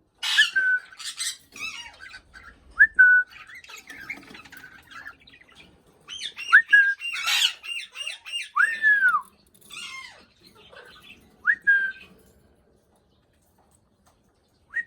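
A raw parrot (Alexandrine parakeet) calling: a run of short squawks and chatter mixed with clear whistled notes that sweep up and then hold, and one longer whistle that falls near the middle. It goes quiet for the last few seconds.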